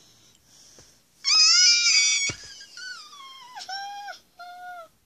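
High-pitched, baby-like crying. One long wavering wail comes about a second in, then three shorter cries, each falling in pitch.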